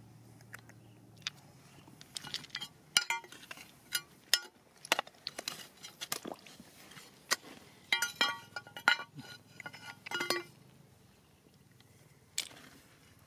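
Metal digging tool knocking, scraping and clinking against rock and loose stones: an irregular run of sharp clicks, some ringing briefly, from about two seconds in to about ten seconds in, with one more knock near the end.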